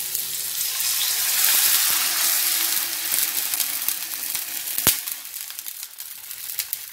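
Sautéed spice paste sizzling in a hot pan as thin coconut milk is poured in from a plastic measuring jug. The hiss is loudest at first and dies down as the liquid covers the pan, with one sharp knock about five seconds in.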